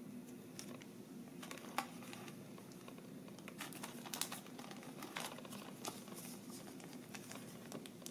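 Crinkling and light clicks of a clear plastic sleeve and sticker sheet being handled, busiest about halfway through, over a low steady hum.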